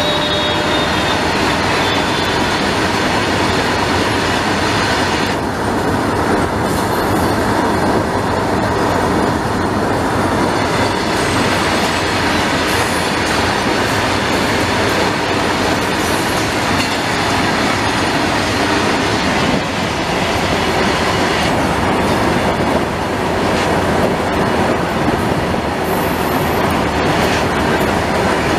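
Long freight train of covered goods wagons rolling past close by: loud, steady rumble and clatter of wagon wheels on the rails. A faint steady high tone rides over it.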